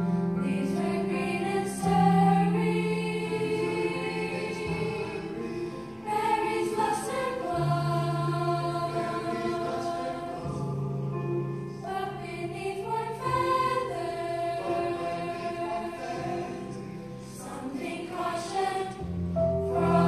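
School chorus singing together in several parts, holding long notes across sung phrases.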